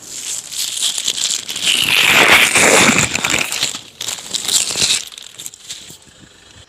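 Plastic sheeting crinkling and rustling as it is handled and pulled off, loudest in the middle and dying down near the end.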